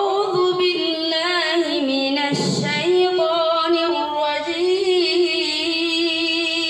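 A boy's voice reciting the Quran in melodic tilawat: one long chanted phrase of high, held notes with wavering ornamental turns, and a brief break about two and a half seconds in.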